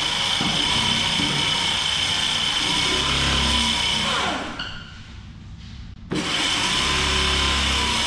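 Electric scooter's front hub motor spinning the lifted front wheel with a steady whine. It is let off about four seconds in and winds down, then runs up again about six seconds in.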